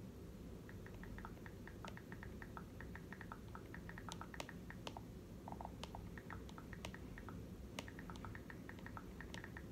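Faint, quick, irregular typing clicks, with a few sharper taps among them, over a low room hum.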